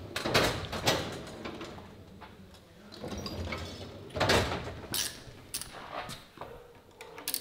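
Scattered sharp metallic knocks and clunks of hand tools and a tool-cabinet drawer as a machinist fetches a tool to adjust the chuck of a crankshaft grinding machine. The loudest clunk comes a little past halfway.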